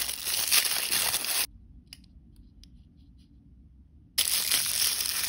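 A crinkly paper blind-bag wrapper being torn open and crumpled between fingers, loud crinkling for about a second and a half. A quiet lull with a few faint clicks follows, then loud crinkling starts again about four seconds in.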